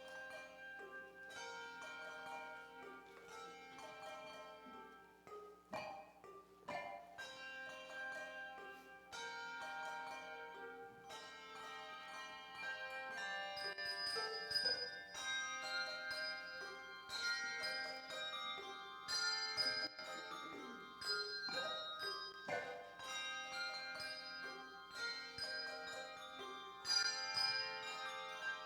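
Handbell choir playing a piece: many bells struck in turn and left ringing, so their notes overlap into sustained chords.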